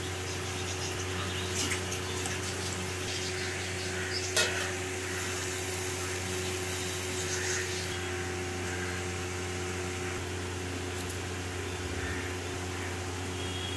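Steady low hum with a hiss over it, and a few light clicks, the sharpest about four seconds in.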